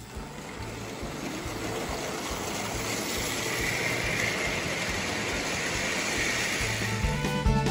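Lionel 1666 Prairie (2-6-2) toy steam locomotive and its freight cars running past on three-rail O-gauge track: a steady rush of the motor and wheels on the metal rails, growing louder as the train nears and passes. The engine has been freshly serviced and runs smoothly. Music with a beat comes in near the end.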